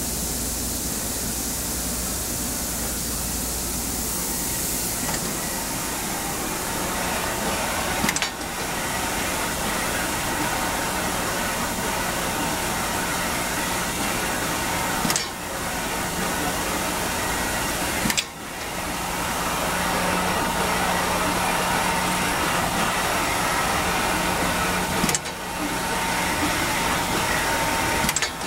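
Philips/Assembleon Topaz-X pick and place machine running in its warm-up cycle: a steady mechanical whir and hum from the machine. It is cut by a brief click and dip four times.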